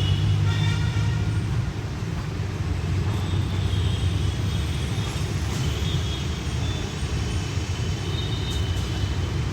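Steady low rumble of vehicle traffic, with faint higher tones coming and going.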